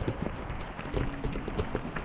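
Walking footsteps on a paved lane, irregular knocks over the rustle of a nylon rain poncho and wind on the microphone.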